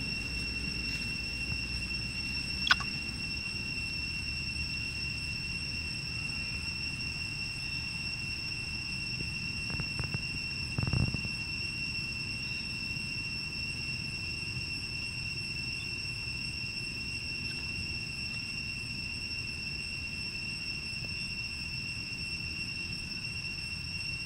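Insects droning steadily at one high pitch, with a fainter tone an octave above, over a low rumble. A sharp click comes about three seconds in and a dull thump around eleven seconds.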